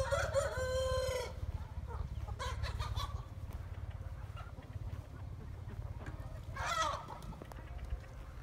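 A rooster crows once at the start, ending on a long held note, then shorter clucking calls from the chickens follow a couple of seconds in and again near the end.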